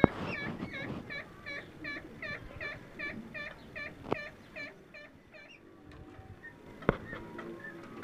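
Parakeet calling in a rapid series of short squawks, about three a second, which stop about five and a half seconds in and give way to faint chirps. A few sharp clicks are heard, at the start, around four seconds and near seven seconds.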